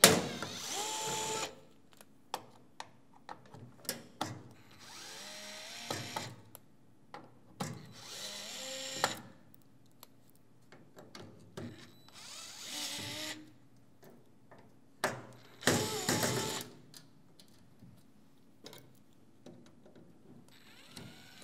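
Cordless drill-driver with a long Phillips bit running in about five short bursts, the motor pitch rising and falling with the trigger, as it works at screws in a record player's stamped-steel chassis. Small metallic clicks and knocks come between the bursts.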